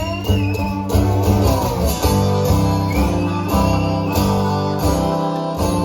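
Live band playing an instrumental break between verses of a country-rock song, with guitars to the fore and no singing.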